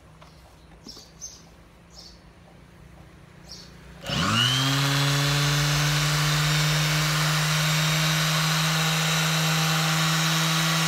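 A 100 V, 150 W electric sander switched on about four seconds in after a few faint handling clicks. Its motor spins up quickly and then runs with a steady hum and a high whine.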